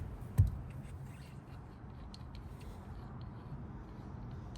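One dull thump about half a second in, then a few faint light clicks of a metal part being handled and set in place.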